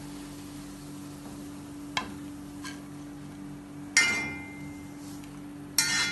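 A steel ladle clinking against a black kadai and a ceramic plate as fried onions are scooped out: a few sharp ringing clinks, the loudest about four seconds in and another near the end, over a steady low hum.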